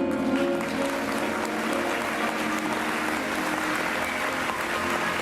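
Audience applauding over the last held notes of the stage musical's scene-ending music.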